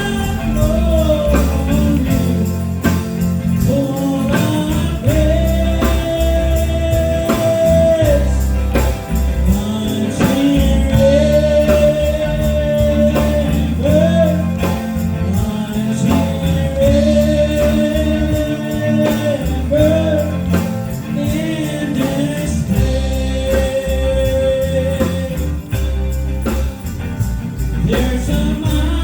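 Live gospel band music: a steady beat with tambourine under a lead melody of long held notes.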